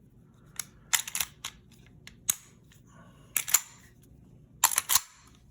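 Sharp metallic clicks and clacks from a Sig P220 SAO pistol's action as it is put back together and worked by hand. They come in about five short clusters.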